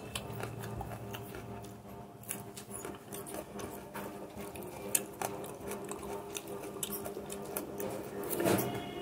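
Eating rice by hand from a plate: fingers mixing rice and curry, with scattered small clicks and light taps against the plate, over a faint steady hum.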